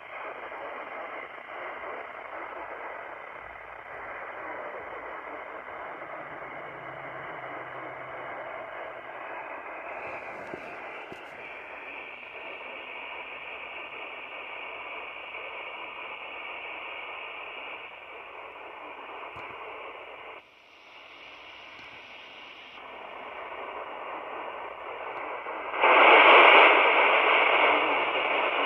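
Radio receiver hissing with static between transmissions, a faint steady tone under the hiss. The static drops out briefly about two-thirds of the way through, then comes back much louder near the end.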